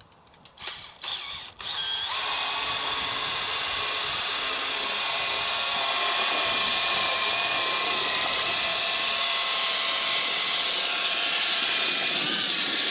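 A few short clicks, then a cordless drill starts about two seconds in and runs at a steady, high whine. It is spinning a Vortex Power Mixer's paddles through liquid in a 55-gallon drum.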